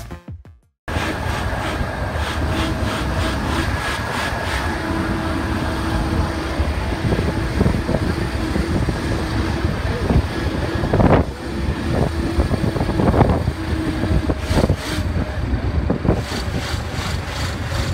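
A moving vehicle's engine and road noise, steady and rumbling low, with a couple of brief louder surges.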